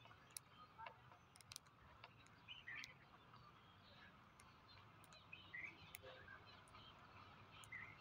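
Faint short bird chirps, a few of them spaced a couple of seconds apart, with scattered light ticks over a quiet background.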